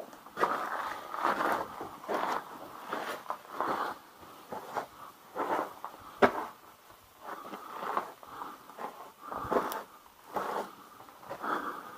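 Footsteps walking over the rocky floor and loose grit of a cave, an uneven step roughly every second with a few sharp scrapes.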